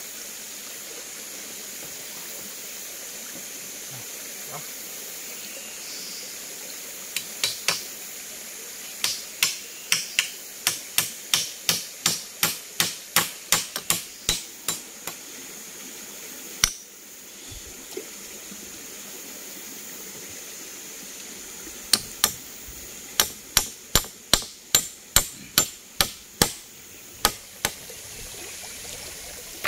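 Two long runs of sharp, evenly spaced strikes, about two to three a second, with one louder single strike between them, over the steady rush of a mountain stream.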